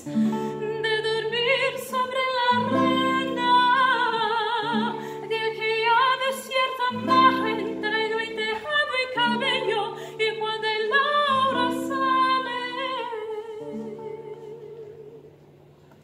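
A woman singing in a classical, operatic style with strong vibrato, accompanied by a plucked classical guitar. Near the end the voice stops and the guitar trails off quietly.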